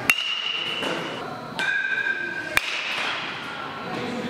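Metal baseball bat striking a tossed ball right at the start: a sharp crack with a high ring that lasts about a second. A second sharp knock comes a little past halfway, with other ringing metallic clinks in between.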